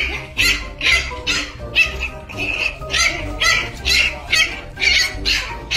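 A small puppy barking, over background music with a steady beat.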